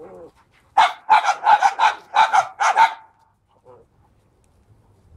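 Dog barking: a brief wavering whine at the start, then, about a second in, a quick run of about eight loud, sharp barks lasting about two seconds.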